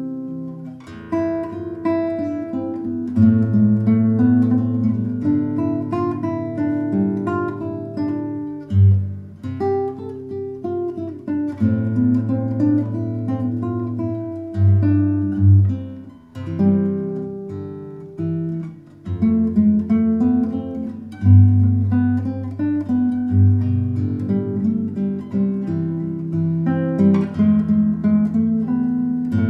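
Solo classical guitar, a Bastien Burlot Conservatoire with nylon strings, played fingerstyle: picked arpeggios with low bass notes ringing under a higher melody.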